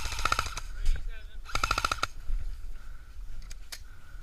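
Airsoft rifle firing two short full-auto bursts of rapid clicks: one at the very start and another about a second and a half in. A couple of single sharp clicks follow near the end.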